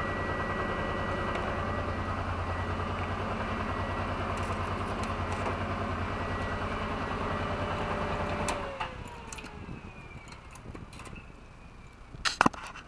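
Honda NT700's V-twin engine running steadily at low speed, then switched off about eight and a half seconds in, the sound dying away with a falling tone. A few sharp clicks near the end.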